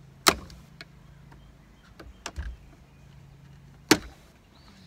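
Hard plastic clicks and snaps of a boat's dash-mounted compass being pried out of its console. There are two loud sharp snaps about three and a half seconds apart, with a few smaller taps between them.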